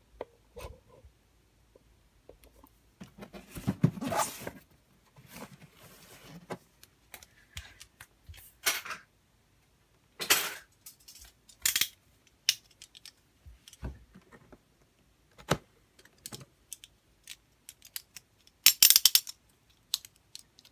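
Cardboard toy-set box being handled and opened: scattered short scrapes, taps and rustles of cardboard with pauses between them, and a denser burst of scraping near the end.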